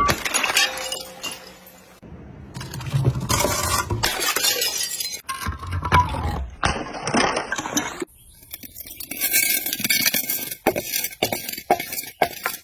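Glass bottles being crushed and breaking, with dense crunching, cracking and clinking of shards. The sound comes in separate stretches that break off abruptly about 2 and 8 seconds in, and many sharp cracks follow near the end.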